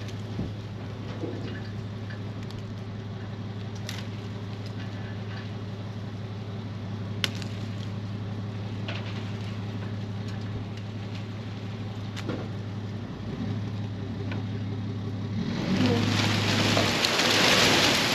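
Dump trailer unloading: a steady machine hum with a few faint clicks, then, about fifteen seconds in, a loud rushing hiss as a load of wood chips slides out of the tilting bed.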